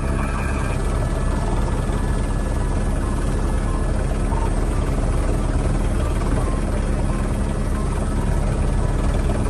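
A steady engine drone at a constant pitch, with a rush of wind noise over it. It holds even throughout.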